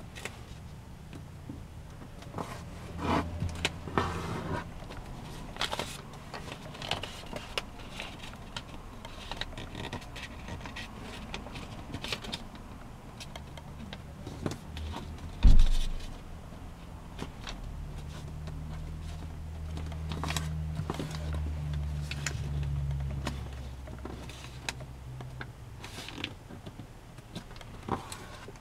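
A sheet of origami paper being folded and creased by hand: scattered short rustles and crinkles as fingers press and slide along the folds, with one sharp knock about halfway through. A low hum runs underneath and grows a little stronger in the second half.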